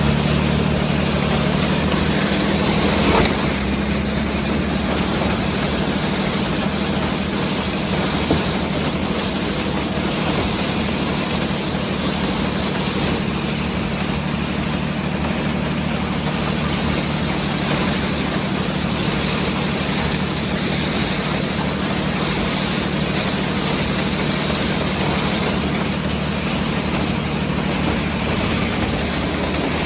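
Farmall 460 tractor engine running steadily under load while harvesting, with the broad mechanical noise of the Allis-Chalmers All-Crop 72 combine working. A brief knock about three seconds in.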